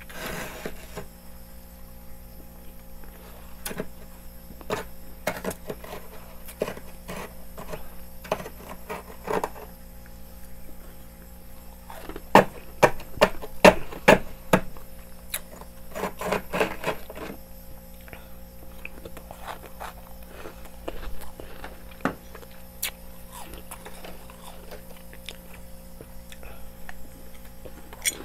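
Metal spoon scraping and chipping thick built-up frost inside a freezer, in scattered sharp clicks and scrapes that are busiest and loudest in the middle, over a steady low hum.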